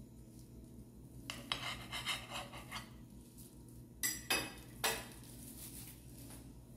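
Table knife cutting through a baked banana cake and scraping on the glass plate beneath, a quick run of short scrapes, then the metal knife clinking three times as it is set down on a plate about four seconds in.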